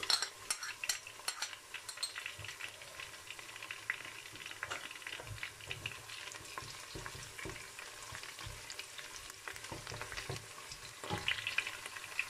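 Sliced onions and garlic sizzling and crackling in hot oil in a stainless steel pot, stirred with a spatula. Sharp crackles come thick right after the garlic goes in, and a louder bout of stirring follows near the end.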